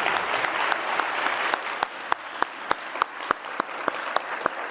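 Audience applauding. The dense applause thins within the first couple of seconds into scattered individual claps.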